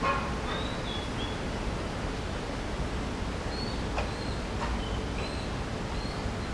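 Steady rushing background noise. A bird gives a few short, high chirps over it, and there is a single click about four seconds in.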